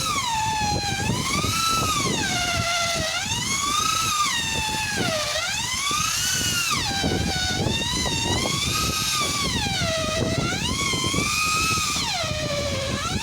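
Electric angle grinder working metal, its high whine dropping and rising again every second or two as the disc is pressed in and eased off, over a rough grinding rasp.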